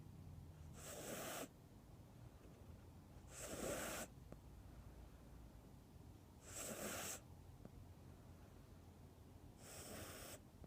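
A sleeping cat snoring faintly: four short, breathy snores, one about every three seconds.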